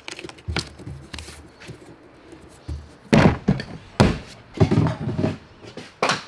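A run of heavy thuds and thunks, several close together between about three and six seconds in: a 2022 Yamaha FX jet ski's seat being set in place and pushed down onto its latch.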